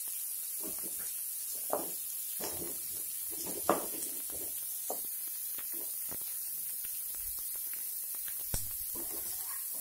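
Wooden spatula scraping and knocking irregularly against an aluminium kadhai as chopped onions and green chillies are stirred, over a steady hiss of the vegetables frying in oil.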